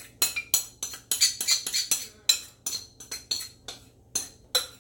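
A metal spoon clinking and scraping against a mixing bowl while shredded raw potato is scooped out into a baking dish: an irregular run of sharp clinks, about four a second.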